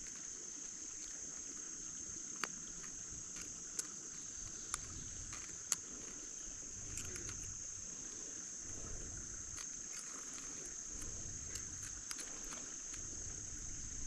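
Insects, crickets, keeping up a steady high-pitched chirring, with a few sharp clicks and low handling rustles over it.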